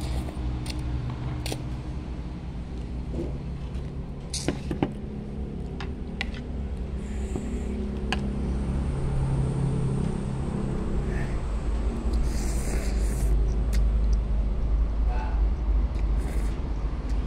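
A steady low rumble with a few short, sharp clicks scattered through it, growing louder in the second half.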